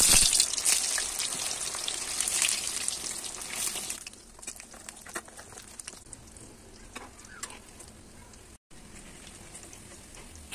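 Breaded raw-banana chops frying in hot oil: a loud sizzle that starts suddenly, fades over about four seconds, and settles into a quieter crackle with scattered pops.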